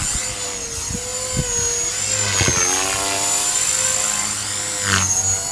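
Electric brushless RC helicopter in flight: a steady rotor buzz with a high motor whine, both wavering slightly in pitch as it manoeuvres.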